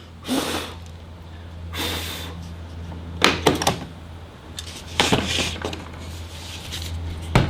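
A timber board and a pocket-hole jig being handled: a series of separate knocks and clunks, some in quick clusters, with a sharp click near the end. A steady low hum runs underneath.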